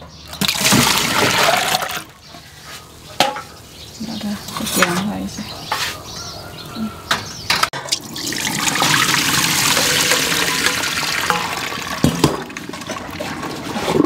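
Hands swishing peeled raw shrimp in a stainless steel bowl of water, with a few knocks against the metal. About halfway through, the water is poured from the bowl through a perforated colander into a steel sink, splashing steadily for several seconds.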